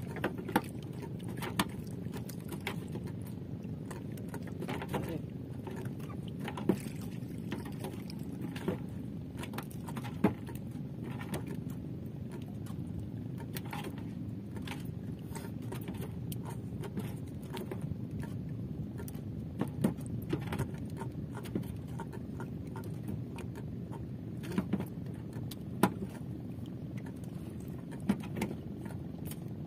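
Scattered sharp knocks and clicks as a hand long line is worked over the side of a small wooden outrigger fishing boat, over a steady low rumble.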